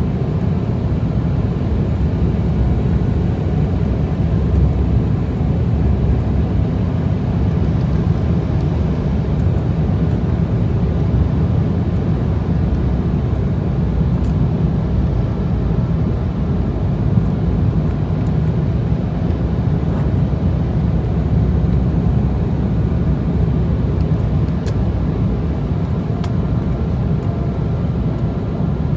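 Steady low cabin rumble of an Embraer 190's turbofan engines and the airflow past the fuselage, heard from a seat over the wing during the final descent to land. A few faint ticks sound now and then.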